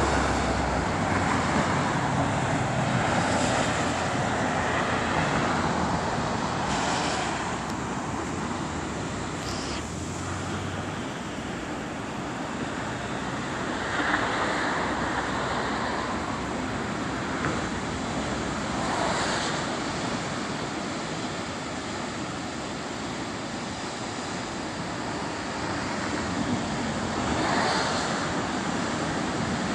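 Road traffic on the coastal highway mixed with ocean surf washing over rocks below: a continuous roar with a deep rumble in the first ten seconds or so and several swells later on.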